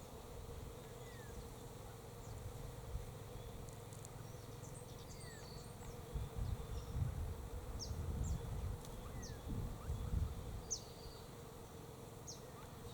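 Bees buzzing steadily around flowering almond blossom, with many short, sharp chirps of small birds, most of them in the second half.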